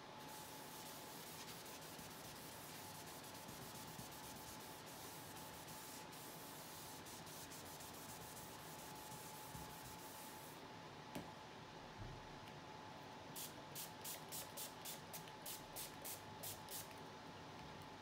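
Faint rubbing of a paper tissue over a sheet of paper as alcohol ink is wiped and spread, a soft continuous scrubbing hiss. A couple of seconds before the end comes a run of about a dozen quick back-and-forth strokes, about three a second. A faint steady high hum lies underneath.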